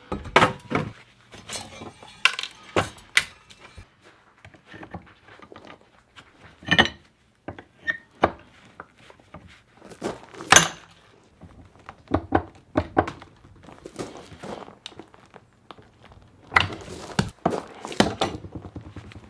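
Irregular knocks and metallic clanks of a dehumidifier's parts being handled during a teardown, one clank ringing briefly about seven seconds in.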